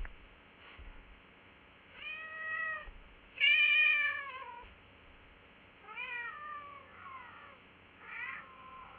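Domestic cat meowing: four or five separate meows, the second one, about three and a half seconds in, the loudest and longest, its pitch falling away at the end.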